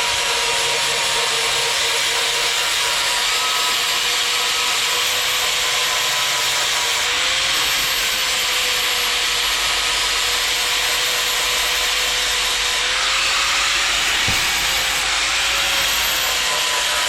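Electric grinder running continuously while grinding down fresh weld beads on the car's sheet-steel frame rail, a steady motor whine under dense grinding noise, its pitch wavering slightly a few times as the load changes.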